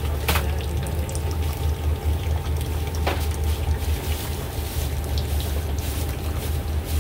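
Big pot of beef brisket and offal simmering, the braising liquid bubbling over a steady low rumble. Two short clicks, about a third of a second in and about three seconds in.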